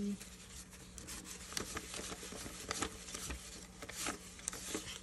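Paper dollar bills rustling and flicking as they are counted and handled by hand, with irregular crisp clicks of the notes.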